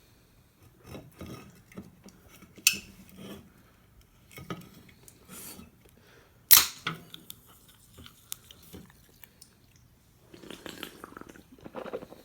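Handling noise: irregular rustling and light taps, with two sharp clicks, one a little over 2.5 seconds in and a louder one about 6.5 seconds in.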